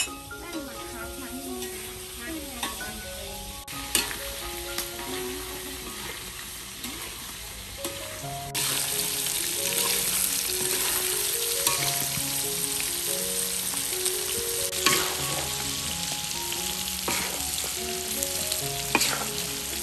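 Tofu cubes frying in hot oil with a steady sizzle, louder from about eight seconds in. A metal spatula clinks and scrapes against the pan as the cubes are turned.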